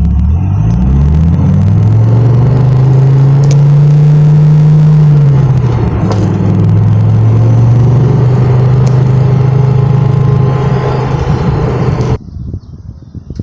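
Dodge Viper V10 engine under way: it rises in pitch as the car accelerates, holds a steady note, drops somewhat about five seconds in, then cruises steadily until the sound cuts off suddenly near the end.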